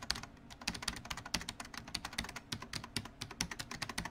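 Rapid keyboard typing clicks, an added sound effect under text being typed onto the screen; they stop abruptly at the end.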